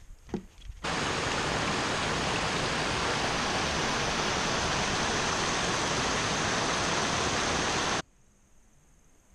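Creek water cascading over rocks: a loud, steady rush that cuts in abruptly about a second in and cuts off abruptly about a second before the end.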